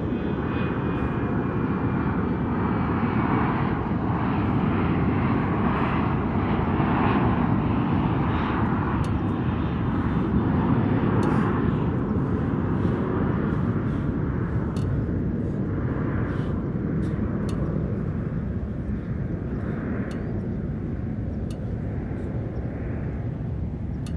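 A steady, loud engine-like rumble that swells a little through the middle and eases slightly toward the end, with faint light clicks over it.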